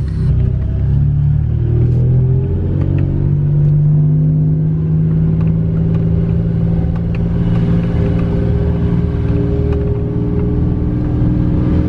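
Toyota truck's engine running, heard from inside the cabin while it reverses; its pitch rises over the first few seconds, then holds steady.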